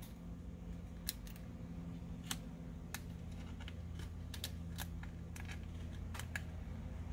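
Metal tweezers clicking and tapping against a phone's metal frame: about a dozen short, sharp clicks at an uneven pace. A low, steady hum runs underneath.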